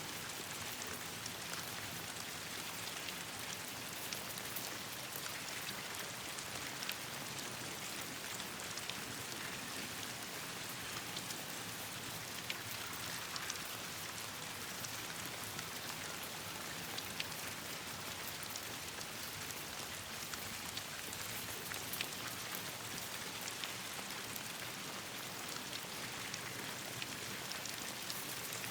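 Steady rain falling, a constant hiss with many small sharp ticks of drops scattered through it.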